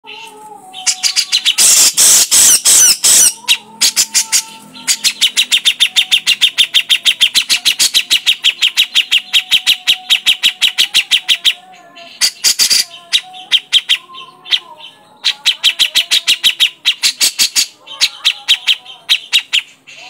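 Grey-cheeked bulbul (cucak jenggot) calling loudly. A few harsh chattering bursts come first, then long fast runs of sharp repeated notes at about eight a second, broken by short pauses.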